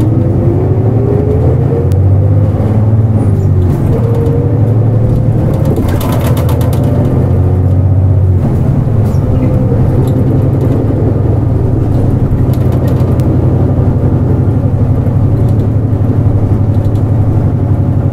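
Nissan Diesel KL-JP252NAN city bus driving along, heard from inside the cabin: a steady low diesel engine drone, with a whine rising in pitch during the first few seconds as the bus accelerates.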